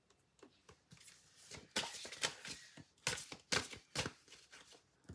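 Oracle cards being shuffled and handled: a run of quick, papery rustles, slides and taps.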